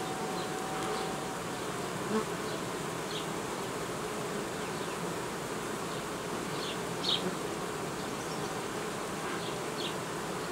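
Honeybees buzzing in a steady hum around an opened hive as its frames are worked, with two short knocks along the way.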